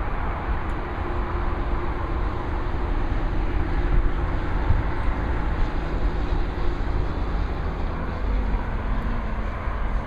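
Steady rumble of traffic on an elevated highway, with no single vehicle standing out.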